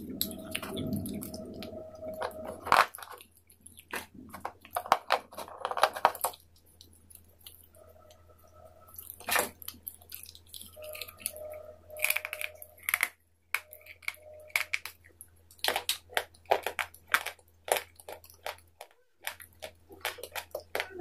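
Close-up crunching and chewing of hard, brittle white sticks: sharp irregular crunches in clusters, with quiet pauses between bites.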